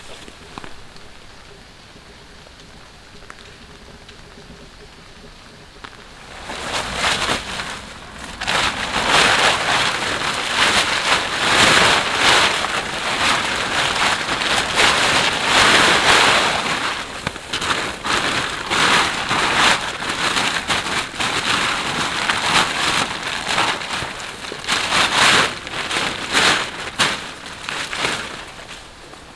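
Light rain hiss at first, then from about six seconds in the loud crinkling and rustling of a polyethylene tarp being unfolded, shaken out and spread on the ground as a ground sheet.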